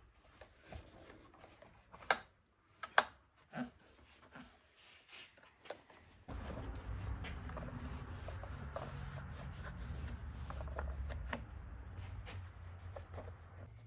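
Wiping and scrubbing the dirty housing of an old Homelite XL2 Auto chainsaw, with a few sharp knocks as the saw is handled. About six seconds in, a continuous scratchy rubbing starts over a steady low hum.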